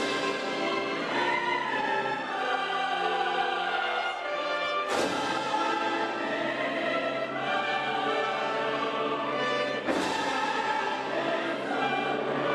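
Opera chorus of men's and women's voices singing with orchestra, holding sustained chords, with sharp accents about five seconds in and again near ten seconds.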